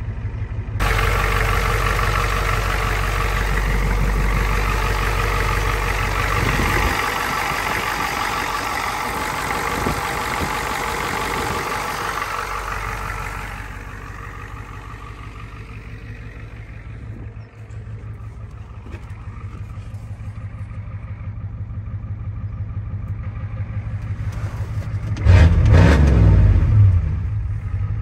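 Ford F250's 7.3 IDI V8 diesel running warmed up. It is louder for the first dozen seconds, then settles to a quieter, steady idle, with a brief loud surge near the end.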